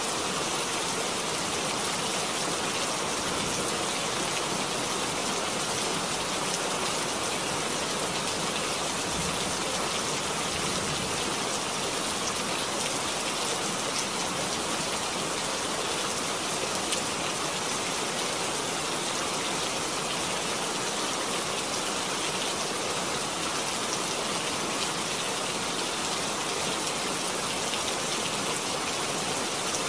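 Steady rain falling, an even, unbroken wash of sound.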